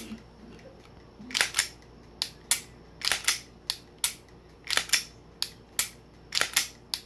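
Unloaded Glock 17 Gen 5 with a Timney Alpha trigger being function-tested: a run of sharp metallic clicks, often in quick pairs, as the slide is racked and the trigger is dry-fired and resets. The trigger's newly replaced reset spring is doing its job: it feels smooth and resets.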